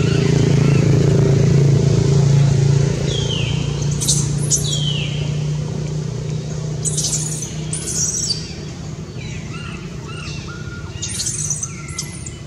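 A steady low engine drone, loudest in the first few seconds and slowly fading, with three bursts of high chirping calls that sweep downward, about four, seven and eleven seconds in.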